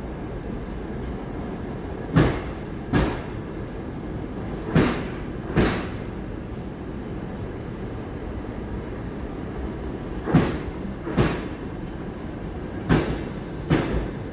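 Passenger coaches rolling slowly past over a steady rumble. The wheels click over a rail joint in pairs, one pair for each bogie's two axles, four pairs in all.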